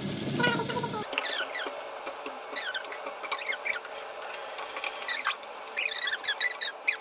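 Beef cubes searing in hot oil and garlic in a pot, with a run of short, falling squeaks and chirps over a faint hiss as moisture from the meat hits the hot oil.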